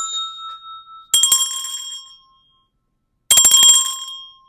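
A small metal bell rung in quick strikes: a short trill about a second in and another near the end, each ringing on and dying away.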